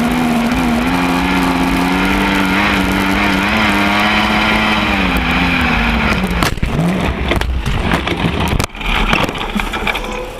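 Lightning sprint race car engine running at steady high revs, its pitch creeping up and then dropping away as it slows about six seconds in. A short blip of revs follows, then rougher noise with a few sharp knocks.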